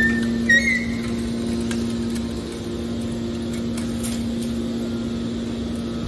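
Hydraulic scrap-metal baler's power unit running with a steady hum while the baler pushes a compressed bale out, with a brief high squeal in the first second.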